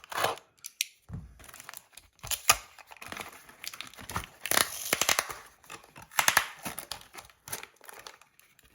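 Packaging being handled and unwrapped: irregular crinkling and tearing with a few sharp clicks.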